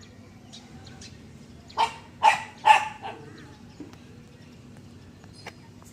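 A pet dog barking three times in quick succession, about half a second apart, with a few faint shorter sounds before them.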